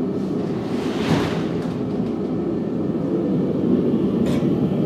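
Forge running with a steady low rushing noise while a piece of steel heats toward hardening temperature. There is a brief hiss about a second in and a few light metallic clicks from the tongs near the end.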